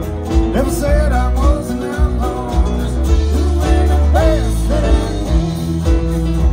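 Live country band playing: fiddle over electric and acoustic guitars, bass and drums, with a steady beat.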